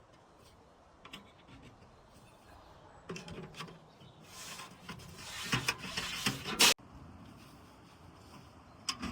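Rubbing and scraping with scattered light knocks as camping-stove parts are handled and fitted together, busiest in the middle; it cuts off abruptly about two-thirds of the way through, leaving quieter handling noise.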